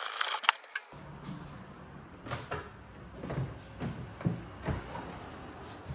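A ratchet clicks briefly at the start, then the plastic fuel tank of a BMW K1200LT knocks and scrapes against the bike as it is lifted off, in scattered bumps and rubs.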